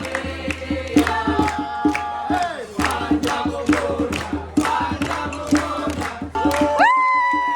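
Background music: a song with a sung vocal over a steady beat, ending on a long held note.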